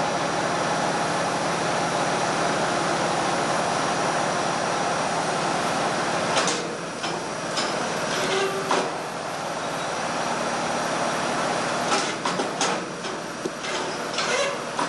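Metal clanks and rattles of a hoist chain and a large diesel exhaust valve being rigged and lifted, scattered through the second half and thickest near the end, over a steady hiss of workshop noise.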